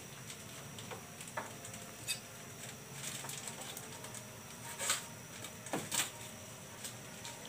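Wok of pork knuckles in a little water starting to cook: a faint steady hiss with a few scattered pops and clicks, the loudest about five and six seconds in.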